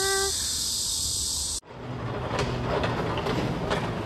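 A steady, high insect chorus buzzing. It cuts off suddenly about one and a half seconds in and is replaced by a steady rumbling noise with scattered faint clicks and rattles.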